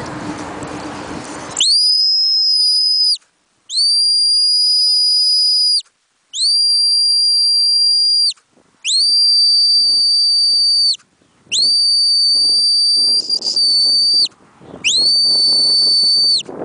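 A whistle blown in six long, steady, shrill blasts, each one and a half to two and a half seconds long, with short gaps between them. Wind buffets the microphone before the first blast, about one and a half seconds in.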